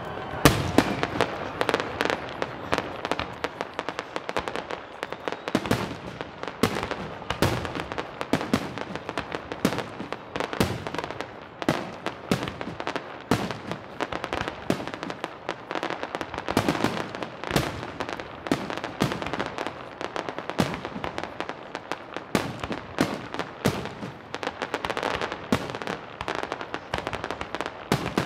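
Aerial fireworks shells bursting in rapid succession: a dense run of sharp bangs, a few a second, with the loudest about half a second in.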